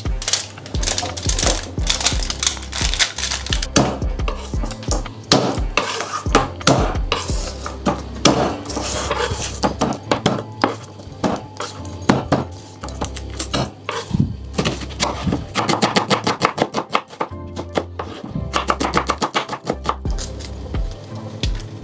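A knife chopping garlic cloves and a red onion on a wooden chopping board, in a series of sharp strikes with a quick run of chops about three-quarters of the way through, over background music.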